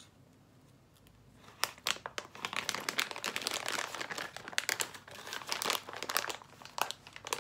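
Plastic pouch of frozen cookie dough chunks crinkling and rustling as it is handled, starting about a second in with many sharp crackles.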